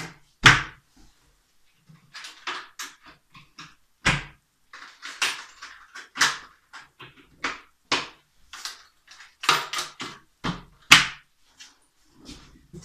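A series of irregular wooden knocks and clunks from a plywood cabinet on wheels being handled: its doors, latches and panels bumping, with the loudest knocks about half a second in and near the end.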